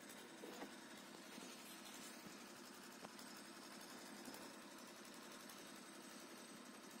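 Near silence: a faint steady hum, with a couple of faint clicks from hands working at the tail light's fixing nut.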